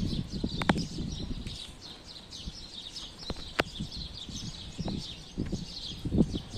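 Small birds chirping continuously over irregular low knocks and patter, with two sharp clicks, about a second in and midway.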